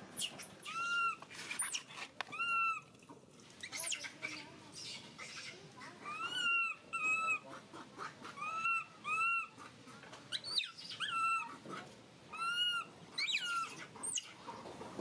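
Infant long-tailed macaque crying: a dozen or so short, arched, high-pitched cries, each under half a second, repeated in an uneven string. These are the baby's distress cries.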